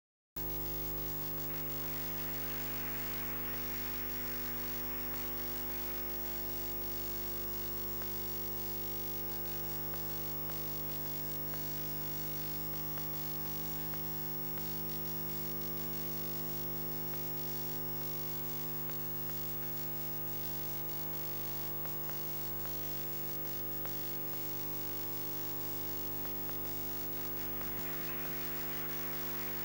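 Steady electrical mains hum and buzz, a stack of even unchanging tones with a faint hiss above. It starts abruptly just after the beginning.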